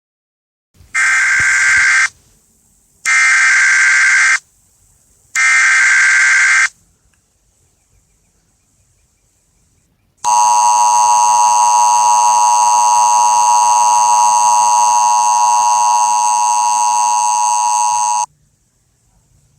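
Emergency Alert System alert header: three loud bursts of screechy digital data tones, each about a second long and about a second apart. After a pause of a few seconds comes a steady attention-signal tone of about eight seconds that stops abruptly.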